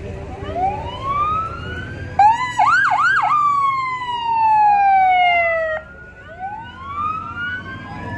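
Fire truck siren sounding in bursts. A rising and falling wail comes first, then a few quick yelps, then a long falling tone that cuts off suddenly. Another rising and falling wail follows near the end. The yelps and the falling tone are the loudest part.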